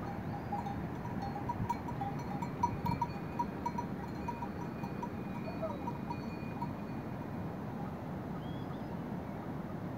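Bells on a caravan of pack mules jingling quickly and unevenly as the animals walk, fading out after about seven seconds, over a steady rushing background.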